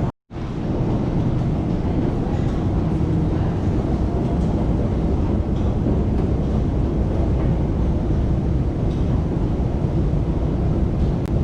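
New York City Subway 7 train running, a steady low rumble of the train in motion. The sound drops out for a moment just after the start, then carries on evenly.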